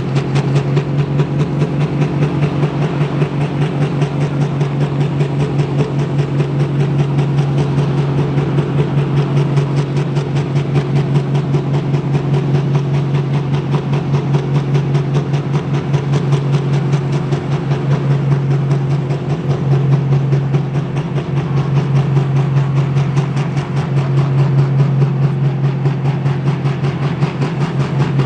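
Pro Stock pulling tractor's turbocharged diesel engine running steadily at high idle while hooked to the sled, a loud, even drone with a rapid, regular pulse that holds throughout.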